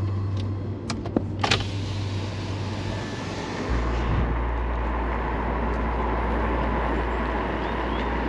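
Road and tyre noise inside a moving 2015 Nissan Leaf, an electric car with no engine note, running on summer tyres. A few light clicks come near the start, and the low rumble grows heavier about four seconds in.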